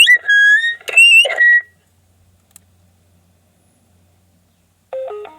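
Loud, high whistling squeal from a faulty microphone, gliding up and down in pitch for about a second and a half, then cutting off suddenly as the microphone is switched off. Near the end comes a short electronic tone sequence stepping down in pitch.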